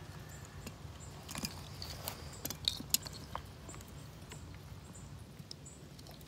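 Scattered clicks and knocks of a jar-top valve wrench gripping and working the plastic jar top of an Irritrol 2400 irrigation valve, which is screwed on tight; the sharpest clicks come about halfway through.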